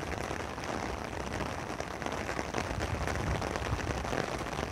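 Steady rain falling, with many small drops ticking on the umbrella fabric overhead.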